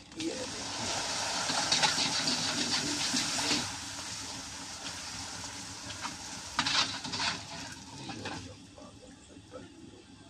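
Puris for panipuri deep-frying in a kadhai of hot oil. A loud sizzle and crackle as a batch of dough rounds goes in settles to a lower steady sizzle, flares up again about six and a half seconds in, then fades near the end.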